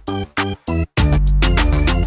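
Background music with a steady beat and heavy bass. It stutters with a few short stops in the first second, then comes back in full.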